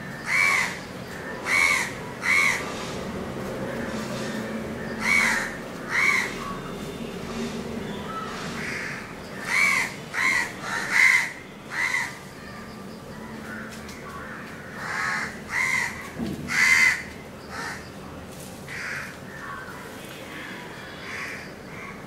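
Crows cawing repeatedly: short harsh calls in quick runs of two or three, some fifteen in all, the loudest cluster about ten to twelve seconds in.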